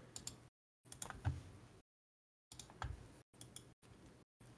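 Several faint, scattered clicks of a computer keyboard and mouse being used, with the sound dropping to dead silence between them.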